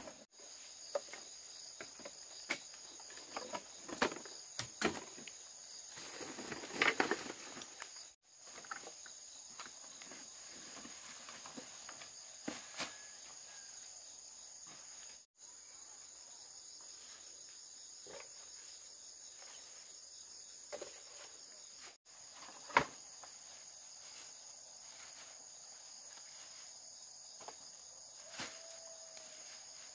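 Steady high-pitched insect chorus drone, with scattered knocks and clicks from handwork, one sharp knock about three-quarters of the way through.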